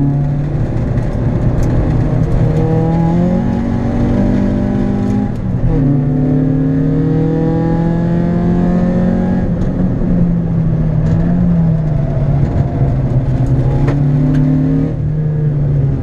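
Citroën Saxo VTS 8-valve 1.6-litre four-cylinder engine heard from inside the cabin, working hard around a circuit. Its pitch climbs, drops sharply about five seconds in, then climbs again, dips briefly, and falls near the end.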